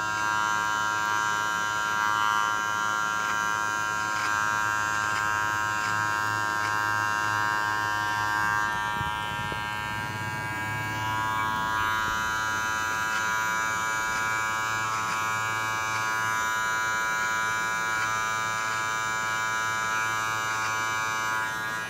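Electric hair clipper running with a steady buzz as it shades the lines of a shaved 3D hair-tattoo design, its tone shifting slightly about halfway through, and it switches off near the end.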